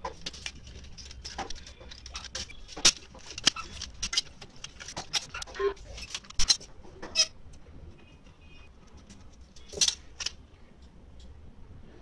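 Irregular sharp clicks, snaps and rattles of plastic parts as an optical disc drive mechanism is taken apart by hand, the loudest snaps a few seconds apart.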